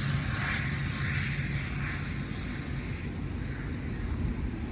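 Jet airliner on landing approach passing over, a steady low hum and rushing jet noise slowly fading as it moves away.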